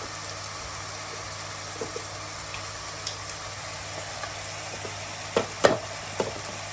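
Chicken and spices sizzling in hot oil in a pan, a steady frying hiss, with a few sharp knocks near the end.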